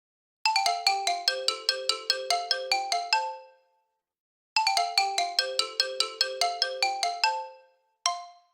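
OnePlus Nord CE 5G ringtone: a short, bright melody of quick struck notes, about five a second, that plays twice with about a second's pause between and starts a third time before cutting off.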